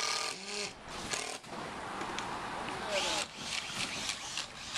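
People's voices talking outdoors, with a quick run of sharp taps or knocks about three seconds in.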